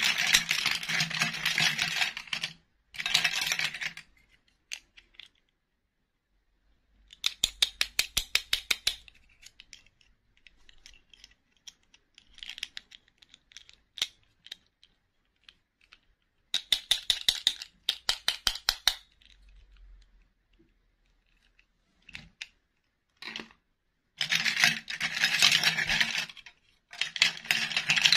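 Small plastic dolls and their clip-on plastic dresses clattering against each other and the bowl as they are rummaged through and handled, in several separate bursts, some of them quick runs of sharp clicks.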